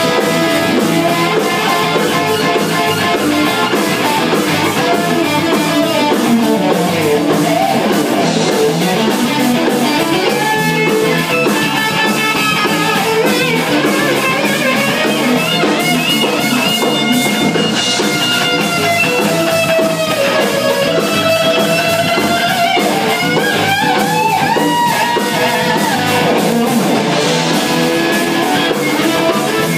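A band playing in a jam session: a guitar lead with bending, gliding notes over drums and accompaniment.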